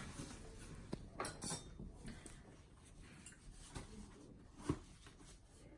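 Faint knocks and handling noise from a small cardboard shipping box being picked up and turned over in the hands, with a few light taps, the clearest about three quarters of the way through.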